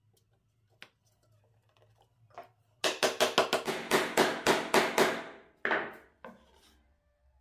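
Butt of a wooden chisel handle tapping a small plywood square down into a recess in a plywood board: a quick run of about a dozen sharp wooden knocks, roughly five a second, starting about three seconds in, then one more knock.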